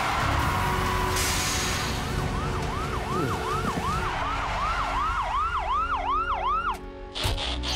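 Cartoon police-car siren yelping, a quick rise-and-fall repeated about three times a second, starting around two seconds in and stopping abruptly near the end. A tyre screech dies away at the start, and a couple of sharp knocks come near the end.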